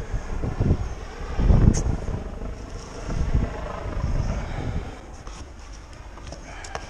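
Snow shovel scooping and pushing through deep drifted snow in several uneven strokes, with low wind rumble on the microphone.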